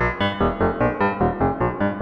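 Wavetable synthesizer music: short pitched notes in a quick even pulse, about four a second, the pitch moving from note to note. The sound is fully synthetic, with no samples.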